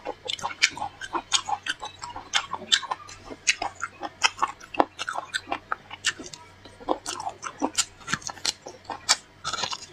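Close-up mouth sounds of a person eating braised beef marrow bones: chewing and sucking at the bone, heard as a quick, irregular run of wet smacks and clicks, several a second.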